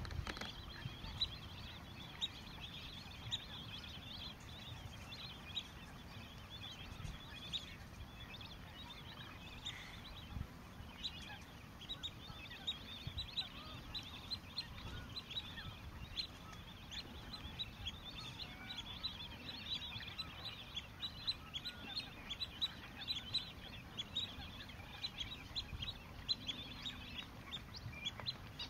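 A dense chorus of wetland waterbirds calling: many short, sharp calls overlapping without a break, over a low rumble.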